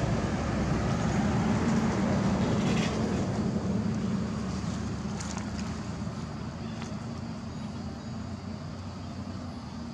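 Steady low hum of a motor vehicle's engine, loudest for the first few seconds and then fading away.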